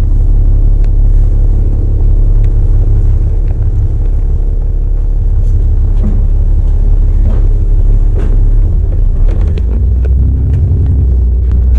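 Alexander Dennis Enviro 400 double-decker bus under way, heard from inside: a steady, loud low rumble of diesel engine and road noise, with light rattles and clicks from the bodywork, more of them in the second half. The engine note shifts about ten seconds in.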